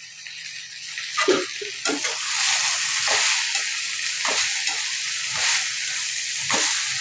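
Chopped okra, onion and tomato sizzling in oil in an aluminium kadai as a perforated steel spoon stirs and scrapes through them again and again. The sizzle grows louder about two seconds in as the stirring spreads the vegetables over the hot pan.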